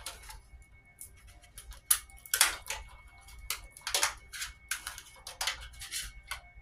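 Irregular clicks, taps and short scraping rattles of plastic connectors and cables as the drive cables are pulled loose inside a desktop computer case.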